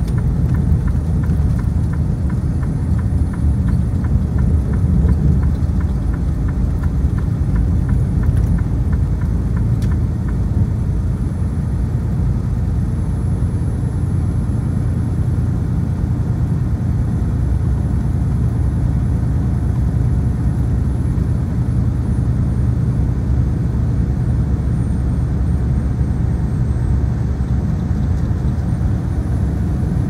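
Inside a semi-truck's cab cruising at highway speed: a steady, low engine drone mixed with road and tyre noise.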